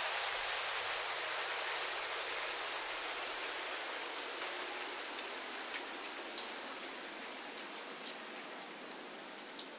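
Steady rain, fading out gradually, with a few faint scattered drips.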